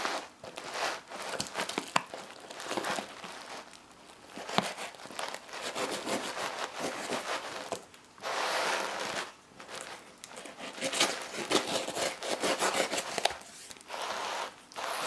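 Foil and paper packaging being torn and crumpled open by hand: irregular crinkling and tearing in repeated bursts, with a few sharp clicks.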